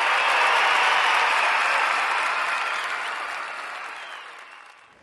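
Applause, swelling in at the start and fading away gradually over the last few seconds.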